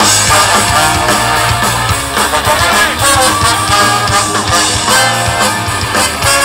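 Live ska-punk band playing an instrumental passage: trumpets and trombone over electric guitars, bass and drums, loud as heard from the crowd.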